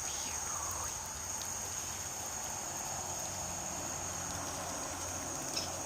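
Steady high-pitched chirring of crickets, with a low hum underneath. A short falling squeak sounds at the very start, and a few faint clicks come near the end.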